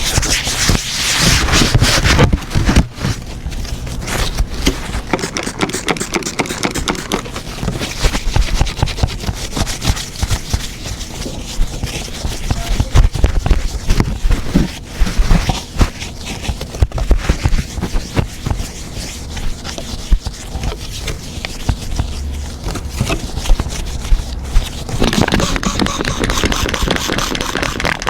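Irregular scraping and rubbing from hands working on an iPad, full of small clicks and scratches.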